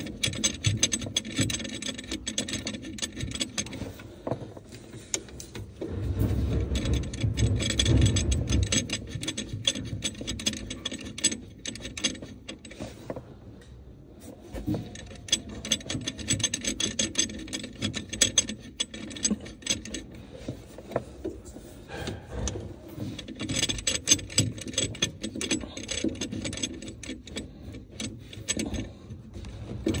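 Faucet mounting hardware being tightened up under a kitchen sink by hand, in runs of rapid ratcheting clicks, with rubbing and bumping of the hoses and fittings in between.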